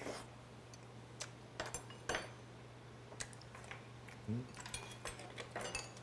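Faint, scattered clicks and clinks of a metal spoon and chopsticks against tableware while eating abalone, with a short low rising hum from the eater about four seconds in.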